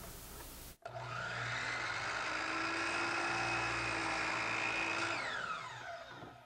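Chop saw (compound miter saw) running and cutting through a piece of crown molding with a steady whine. About five seconds in, the trigger is released and the motor winds down with a falling whine.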